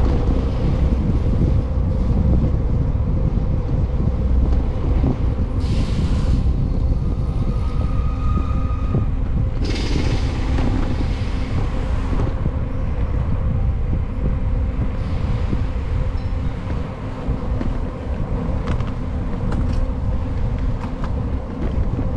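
Wind buffeting the microphone of a bicycle-mounted camera while riding, a dense low rumble with a steady hum through it. Two brief hissing swells come about 6 and 10 seconds in.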